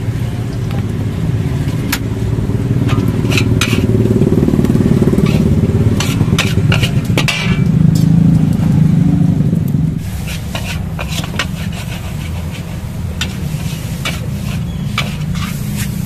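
Flat rice noodles (kwetiau) being stir-fried in a steel wok: a metal spatula scrapes and clanks against the wok many times over a steady sizzle and the low rumble of the gas burner. About ten seconds in, the rumble drops lower in pitch.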